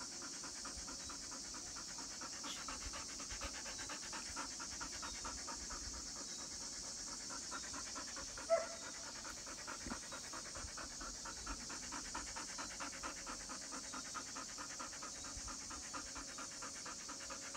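A dog panting rapidly and evenly, mouth open, with one brief louder sound about halfway through.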